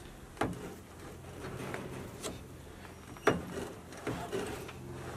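Ratchet tie-down strap and its metal hooks being handled while a UTV is strapped onto a utility trailer: a few separate clicks and clanks, the loudest about three seconds in, over a faint steady low hum.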